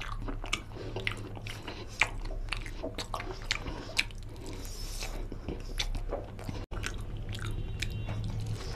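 Close-miked eating: a person biting into and chewing curried mutton shank pieces with rice, with wet smacking and sharp clicks, a few of them louder. The sound breaks off for an instant about two-thirds through.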